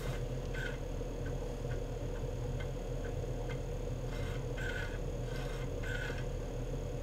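Apple IIe 5.25-inch floppy disk drive reading a program: a steady whir from the spinning disk with short chirps and ticks at irregular intervals as the head steps across the tracks.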